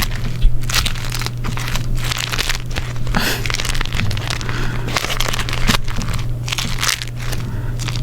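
Beeswax wrap being crumpled and folded by hand: a continuous run of irregular crinkling and crackling, over a steady low hum.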